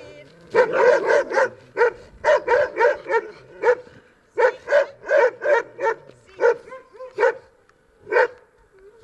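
A dog barking in quick runs of short, sharp barks, a brief lull about four seconds in, then thinning to single barks near the end.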